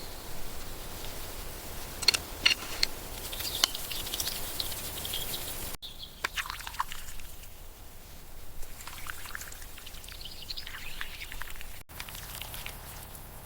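Birds chirping over a steady outdoor hiss, with a few short high chirps and falling calls; the sound changes abruptly twice, about six and about twelve seconds in.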